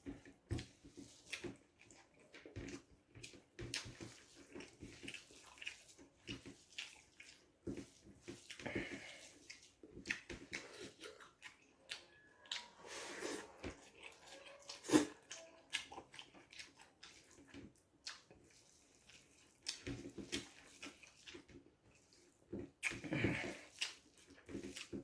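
Kitchen work: frequent short clinks and knocks of utensils and cookware, with a few brief bursts of running water.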